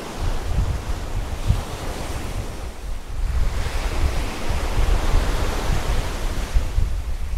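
Strong wind buffeting the microphone over Mediterranean waves breaking and washing against a rocky breakwater; a broad rush of surf swells from about three seconds in and eases near the end.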